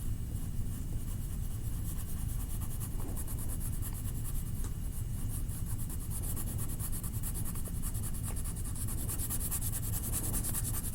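A colouring tool rubbing and scratching on paper in quick back-and-forth strokes as a drawing is filled in with colour. The strokes grow stronger near the end, over a steady low hum.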